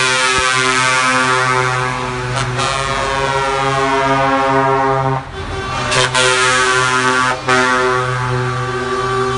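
Truck air horns blowing in long, overlapping blasts, several tones sounding together like a chord, with a few brief breaks, as trucks drive past.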